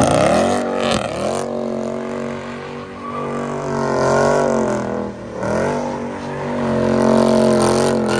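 A car engine revving hard and held high while the car slides. The revs waver and drop sharply about a second in and again around five seconds in, each time climbing straight back up. A hiss sits over the engine near the start and again near the end.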